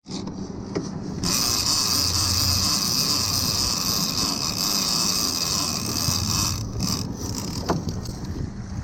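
Boat engine running steadily under way, with a loud hiss that starts about a second in and stops suddenly a couple of seconds before the end.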